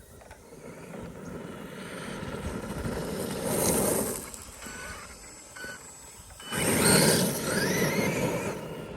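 Traxxas E-Revo RC truck's electric motor whining and its tires churning over gravel and grass as it drives under throttle, building for about four seconds and easing off. A hard burst of throttle about two-thirds in, with the motor whine rising in pitch.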